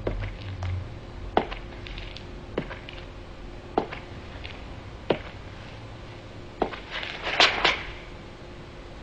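Sharp knocks, about one every second and a quarter, then a louder, quicker cluster of them near the end, over a faint steady hum.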